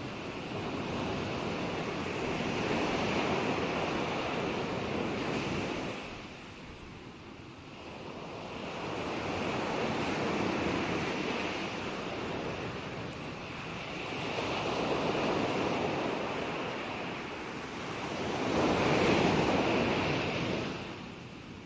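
Ocean surf: waves break and wash up the shore, swelling and ebbing about four times. The last surge is the loudest and falls away just before the end.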